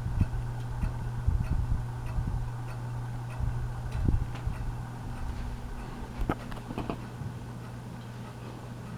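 Hunter Leighton ceiling fan running, its motor giving a steady low hum, with light ticking and irregular knocks and clicks through the first half and a few sharp clicks about six to seven seconds in.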